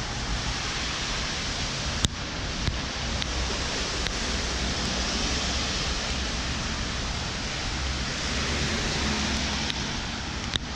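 Wind buffeting the microphone over a steady rushing hiss of rain and car tyres on wet road, with a couple of sharp clicks.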